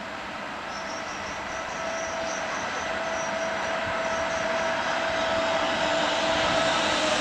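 Trenitalia E464 electric locomotive hauling a passenger train as it approaches, with wheel and running noise growing steadily louder. A steady whine runs over it and dips slightly in pitch near the end.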